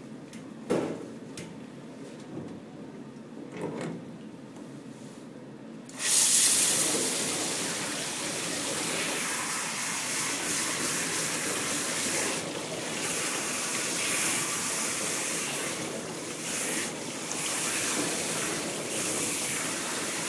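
A handheld shower sprayer turns on suddenly about six seconds in and runs steadily, water hissing onto a lathered rabbit's fur as the shampoo is rinsed out. Before it starts there are only soft handling sounds and a few light knocks as the lather is worked in.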